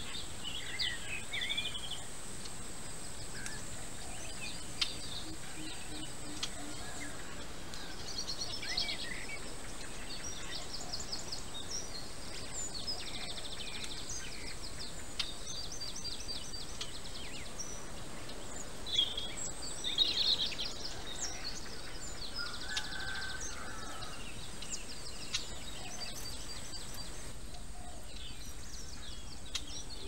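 Outdoor woodland sound of several wild birds calling: scattered chirps and quick rattling trills, with the loudest calls about two-thirds of the way in, over a steady high whine.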